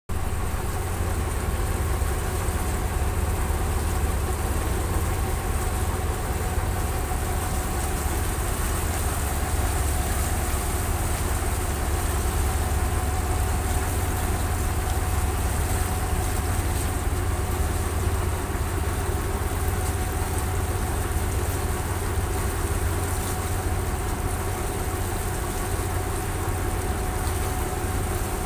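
Boat engine running steadily with a deep, unbroken drone, heard from on board.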